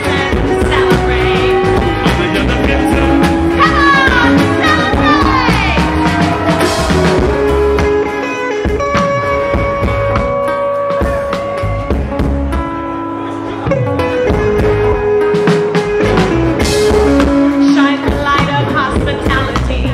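Live band playing with electric guitars, bass guitar and drums, and a woman singing. The low end thins out for a few seconds in the middle, then the full band comes back in about fourteen seconds in.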